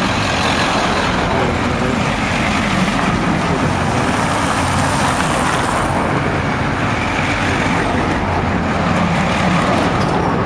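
A line of police vans driving past one after another on a city street: steady engine and tyre noise.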